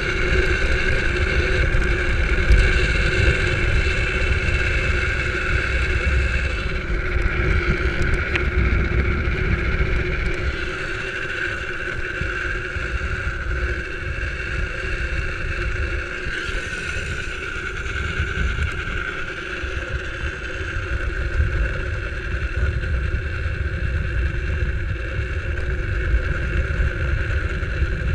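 Drift trike rolling fast downhill on asphalt: steady wind rumble on the camera microphone over a constant hum of the wheels on the road, a little quieter through the middle.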